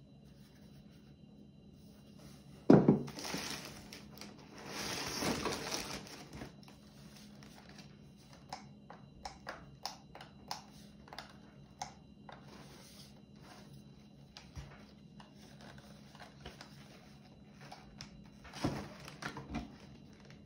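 Packaging being handled while a cordless wet-and-dry vacuum is unboxed: a sharp knock about three seconds in, then a few seconds of crinkling and rustling, followed by scattered small clicks and knocks.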